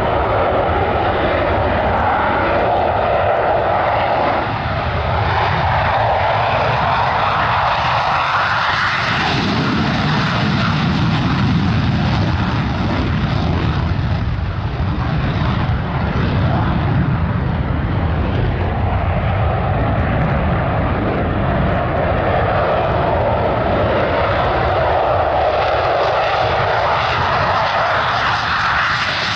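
F-16 fighter jets taking off on afterburner, a loud, continuous jet engine noise that rises in pitch about nine seconds in and again near the end.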